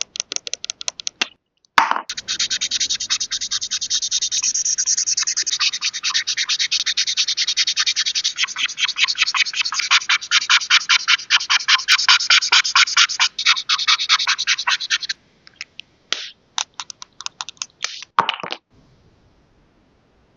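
Rapid scratching strokes on paper, about five a second, running steadily for some thirteen seconds, then a few short scattered strokes before they stop.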